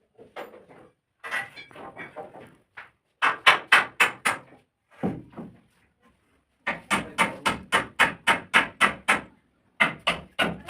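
Hammer blows on timber slab formwork, knocking it loose from the cast concrete, in quick runs of about four strikes a second with short pauses between.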